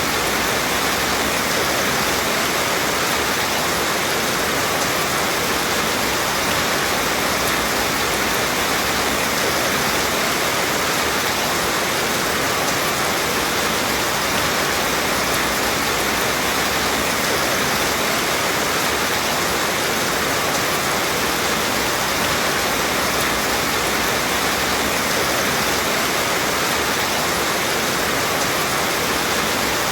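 Rain falling steadily: a dense, even hiss that does not change.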